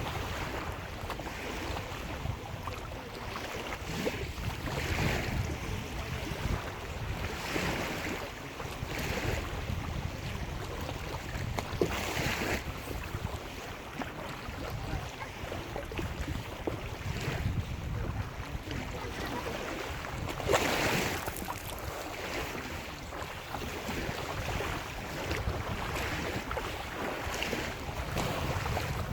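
Small lake waves breaking and washing onto the shore every few seconds, with a larger wash about twelve seconds in and again about twenty seconds in. Wind rumbles on the microphone underneath.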